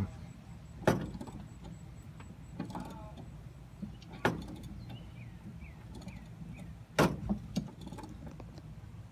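Sharp metallic knocks and clinks of hand tools working on a 1985 Jeep CJ7's steering column linkage. There is one knock about a second in, another a little past four seconds, and three in quick succession around seven seconds, with a few faint high chirps between.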